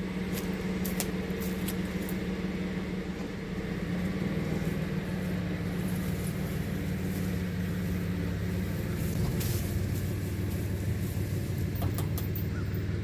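Small truck engine running steadily under load as it drags a log, its pitch rising a little about four seconds in.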